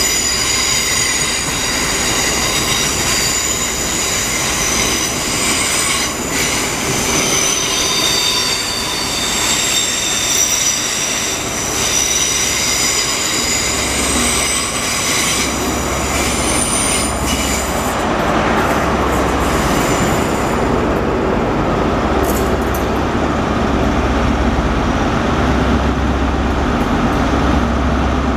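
InterCity 125 High Speed Train (Class 43 HST) moving along curved platform track, its wheels squealing in several high, shifting tones. About two-thirds of the way through the squeal fades and a low diesel engine rumble takes over.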